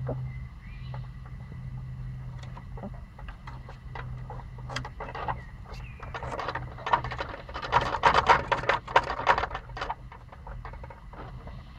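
Pomsky puppies scuffling and pawing at a wooden garden fence: scattered scratches and taps that thicken into a rapid, louder run of scratching about six to ten seconds in, over a steady low hum.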